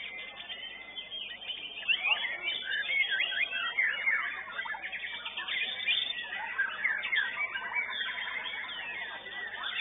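White-rumped shama (murai batu) song: a fast, varied stream of whistles and chirps that grows denser about two seconds in.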